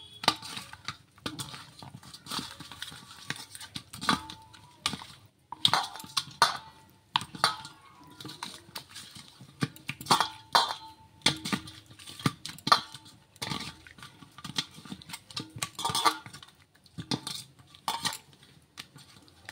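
Hands rubbing raw katla fish pieces with turmeric, salt and oil in a stainless steel bowl: irregular clinks, knocks and scrapes of fish and fingers against the metal.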